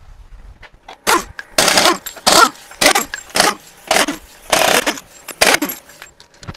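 An air tool run in about eight short bursts, each a few tenths of a second, with quick gaps between them.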